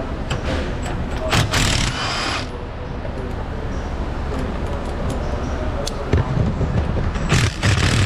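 Air ratchet running in two short hissing bursts, about a second in and again near the end, backing out the bolts that hold a fuel-tank shield to a pickup's frame. A steady low shop hum runs underneath.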